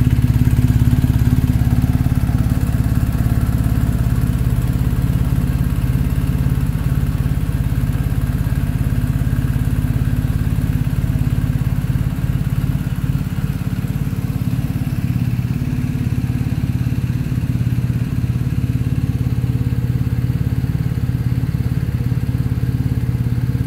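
BMW R 1250 GS boxer-twin engine idling steadily through an Akrapovic slip-on silencer, with a deep, even exhaust note that is a little louder in the first second and then settles.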